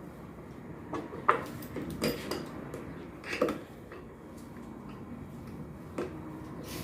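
Scattered metallic clinks and knocks of a wrench and bolts as a washing machine's counterweight is unbolted and handled: a few sharp knocks just after a second, around two seconds, about three and a half seconds in, and one more near six seconds.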